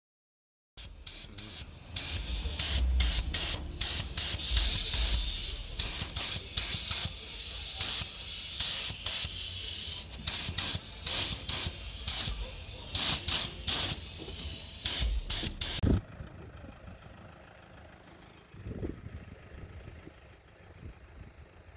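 Pressurised spray hissing in many short bursts, one after another, which stops abruptly about 16 seconds in and leaves only a faint background.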